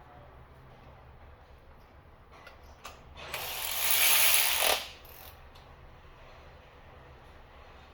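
Ratchet wrench tightening a spark plug: a couple of single clicks, then about a second and a half of loud, rapid ratcheting that swells and stops abruptly, over a low steady hum.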